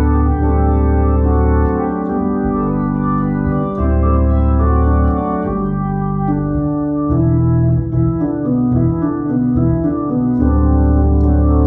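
Hammond organ playing a slow passage of held chords over a bass line, the chords changing every second or two.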